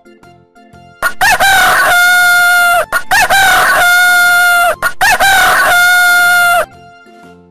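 Rooster crowing cock-a-doodle-doo three times in quick succession, each crow about two seconds long, rising at the start and then held before breaking off.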